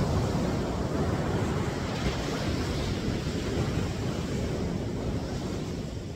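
Ocean surf rushing and washing up a beach, with wind buffeting the microphone; the wash eases off near the end.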